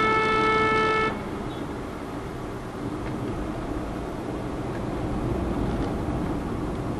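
A vehicle horn held on one steady note, cutting off sharply about a second in, followed by the steady road and tyre noise of a car driving at speed, heard from inside the cabin.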